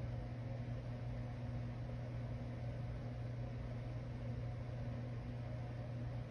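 Small electric circulator fan running steadily: an even low hum with a soft airy hiss.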